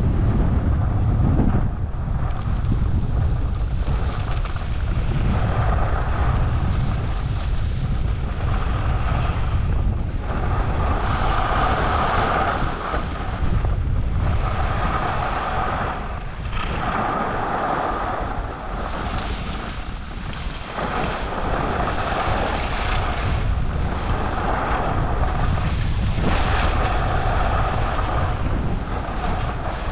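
Wind buffeting a helmet-mounted camera's microphone during a downhill ski run, a steady low rumble. Over it, the hiss of skis scraping across groomed snow swells and fades every few seconds with each turn.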